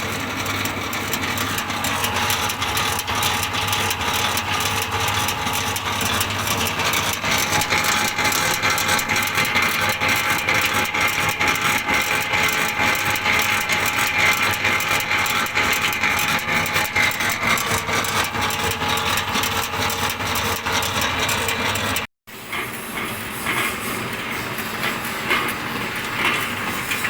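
Wood pellet mill running under a trial load: a steady motor hum and whine with a fast, dense rattle from the die and rollers. The sound breaks off for a moment near the end and then carries on.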